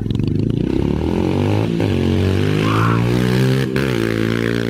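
Small dirt bike engine running hard as the bike rides past close by. Its pitch climbs and then drops twice, and it is loudest as it goes by.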